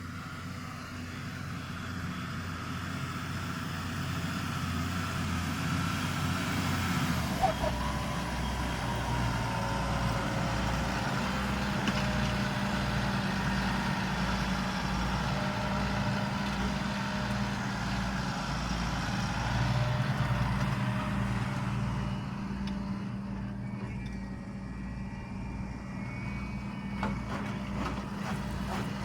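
Deutz-Fahr 6205 RShift tractor's diesel engine working steadily under load while pulling a three-furrow plough, growing louder over the first several seconds.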